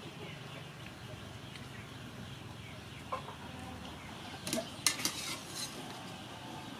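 Water boiling in a large aluminium pot of sticky-rice balls, with a few sharp metal clinks just past the middle as a wire skimmer knocks against the pot.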